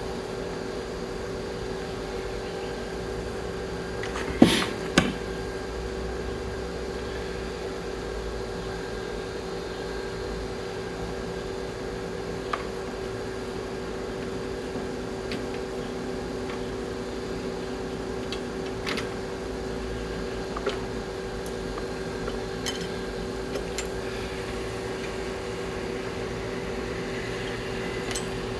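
Steady mechanical hum, like a shop fan, with light metallic clinks of rocker arm parts being handled on the engine head. Two sharper knocks come in quick succession about four and a half seconds in.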